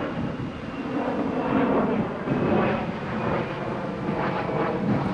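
A steady engine drone that swells over the first couple of seconds and then holds.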